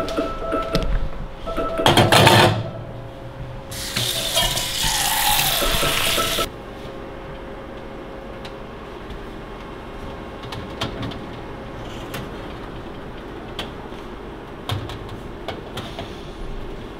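Metal clatter and scattered clinks of an oven rack and a metal baking tray being handled. About two seconds in there is a short loud burst, then a loud rushing noise for nearly three seconds before the clinks.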